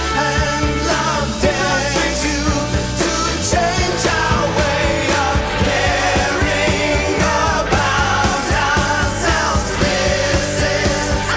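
Rock song with a singing voice over a full band.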